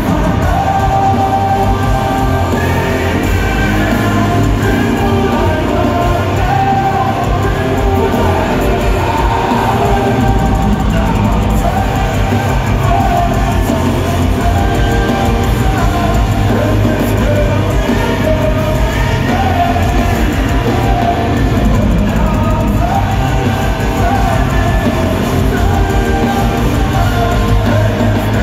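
Live rock band playing with a singer, loud and steady, heard from the crowd in a large, echoing arena.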